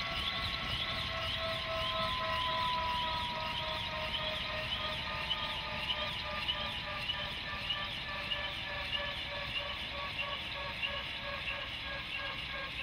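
Bell UH-1H Huey's Lycoming T53 turboshaft winding down on the ground: a turbine whine slowly falling in pitch over the swish of the two-blade main rotor, about two blade passes a second, fading gradually.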